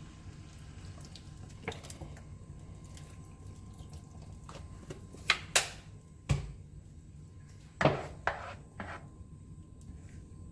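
Kitchen utensils clinking and knocking against a cooking pot: a handful of short, sharp strikes, bunched in the second half, over a faint steady low hum.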